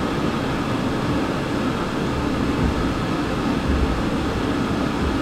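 Steady room noise in a hall: an even hiss with a low rumble underneath and no speech.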